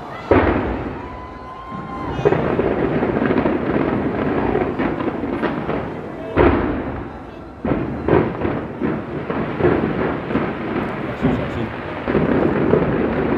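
Aerial fireworks display going off in quick succession: repeated sudden booms with crackling between them. The sharpest bursts come just after the start and about six and a half seconds in, and a brief whistle sounds about a second in.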